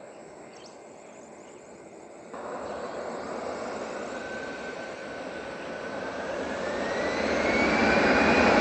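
Jet engines of an Airbus A320-200 spooling up to high thrust on the runway. The roar comes in suddenly a little over two seconds in and then keeps growing louder, with a whine that rises in pitch.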